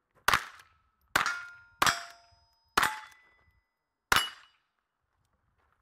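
Five .22 rimfire rifle shots at an uneven pace, each followed at once by the ringing clang of a hit on a steel target.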